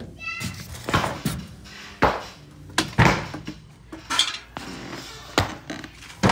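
Thin sheet-metal ductwork being handled: a run of sharp metallic clanks and rattles, roughly one a second, as the cut duct panel is moved.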